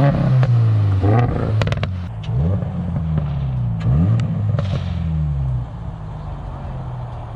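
Toyota GR86's flat-four engine through an aftermarket exhaust, revved in several quick throttle blips with a burst of sharp cracks after the first. It then settles to a steady idle near the end.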